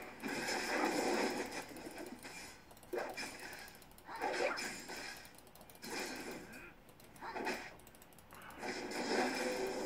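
Computer keyboard keys being pressed in rapid bursts while gaming, a flurry of clicking about every second or two with short lulls between.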